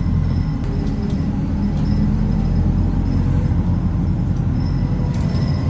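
City bus heard from inside the passenger cabin: its engine running with road noise, a steady low rumble.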